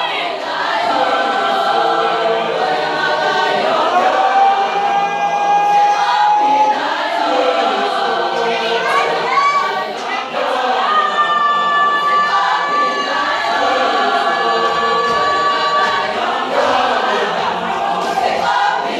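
A choir of men and women singing a hymn a cappella in isiZulu, with long held notes.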